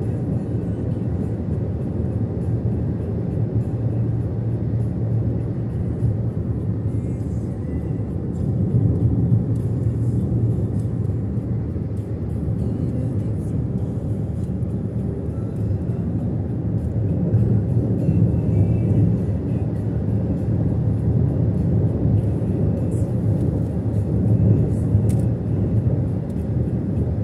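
Steady low rumble of a car travelling at highway speed, with tyre and engine noise heard from inside the cabin.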